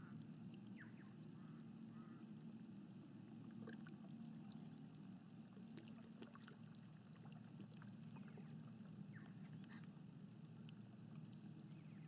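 Calm water lapping quietly and steadily, with scattered faint high chirps over it.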